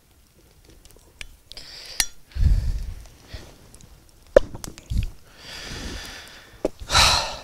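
A cork being worked out of a glass wine bottle: scattered sharp clinks and clicks of the tool against the glass and a couple of dull knocks, then a short loud rush near the end.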